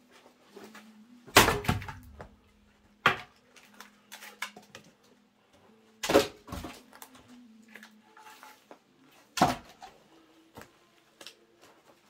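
Larch rounds being split by hand with an axe: sharp wooden knocks of the axe biting into the wood and split billets clattering onto the woodpile. There are four loud knocks, the first the loudest, with smaller clunks in between.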